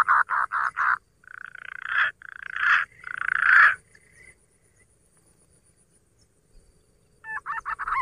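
Mouth-imitated calls of the punai (green pigeon), used as a lure: a fast run of pulsed, bubbling notes that stops about a second in, then three longer warbling notes, each louder than the last. After a pause of about three seconds the fast pulsed calling starts again near the end.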